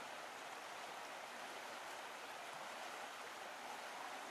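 Steady rushing-water noise, an even hiss with no breaks or rhythm.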